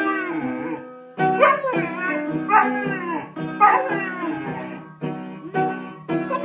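German Shepherd puppy howling along to an upright piano being played. The puppy gives a few short howls that fall in pitch, over the piano's ringing notes.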